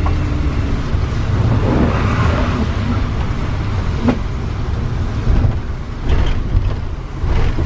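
A motorhome driving on a wet road, heard from inside the cab: a steady low engine and road rumble with tyre noise. A few short knocks come through, the clearest about four seconds in.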